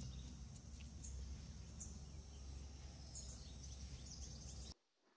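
Faint outdoor background noise: a steady low rumble and hiss, with a few faint short chirps. The sound drops out to complete silence for about half a second near the end.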